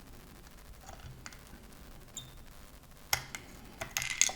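Light clicks and scraping of tools against a circuit board as a component is desoldered: faint at first, then a few sharp clicks about three seconds in.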